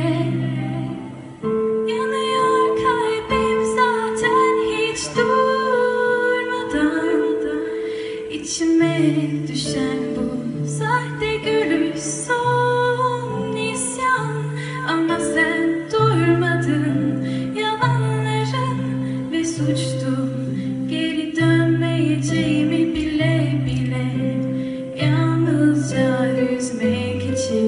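Live band playing a song, a woman singing lead over acoustic guitars, keyboards, bass and drums. The bass moves in held notes about once a second under the sung line.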